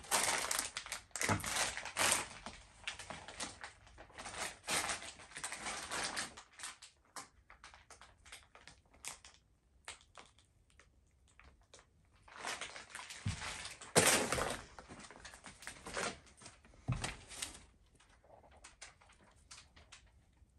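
Footsteps crunching and scuffing over debris on a littered floor, with dull thumps. The crackle comes in two main stretches, through the first six seconds and again a little past halfway, with quieter moments between.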